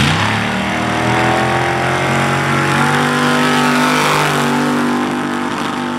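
Formula Offroad buggy's engine revving up sharply at the start, then held at high revs under full throttle in one steady, strong engine note.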